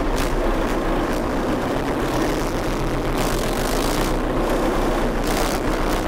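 BVP-1 (Czechoslovak-built BMP-1) tracked infantry fighting vehicle running steadily as it drives, its V6 diesel engine giving a loud, even rumble.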